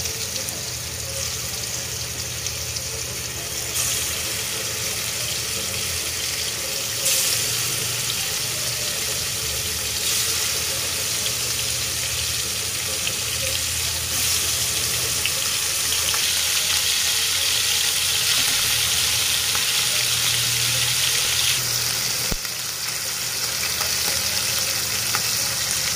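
Hilsa fish steaks sizzling as they fry in hot oil in a non-stick frying pan. The sizzle grows louder in steps as more pieces are laid in. There is one sharp click about 22 seconds in.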